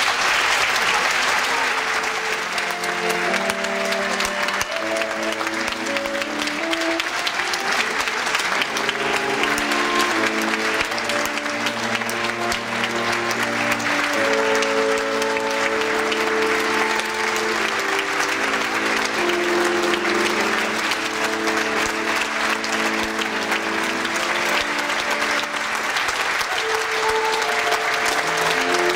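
An audience applauding steadily throughout, over live music from a small ensemble playing a slow melody of held notes.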